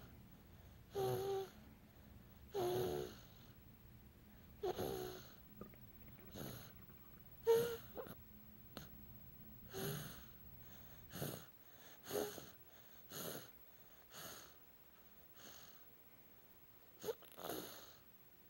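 Wheezy, squeaky snoring: one noisy breath every one to two seconds, several with a short high squeak in them.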